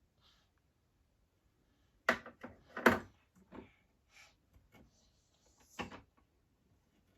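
Knocks and clatter from a child handling a toy kitchen, with two sharp knocks about two and three seconds in, another near six seconds, and lighter taps between.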